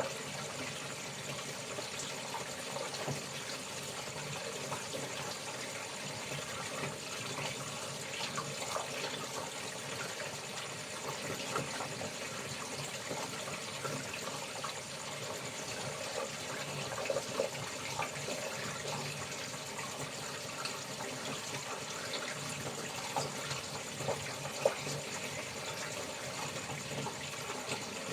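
Water running and splashing as laundry is washed, over a steady high chirring of evening insects. A few short sharp knocks come in the second half, the loudest about three-quarters of the way through.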